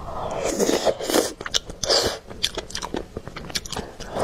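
A person chewing a mouthful of rice and meatball right at the microphone: irregular smacking chews with many small, sharp mouth clicks.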